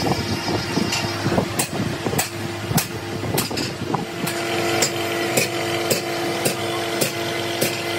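Crankshaft grinding machine running, a steady machine hum with sharp ticks nearly twice a second, as the crankshaft turns against the grinding wheel. About four seconds in, the hum becomes steadier and more tonal.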